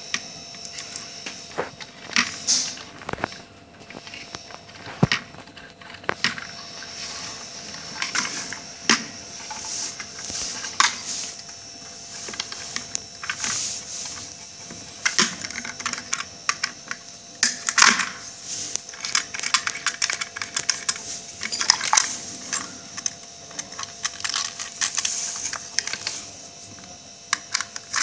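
Handling noise from hand wiring work: irregular clicks, taps and scratching as insulated wires are handled and pushed onto the terminals of a fan regulator module and socket in a small wooden box.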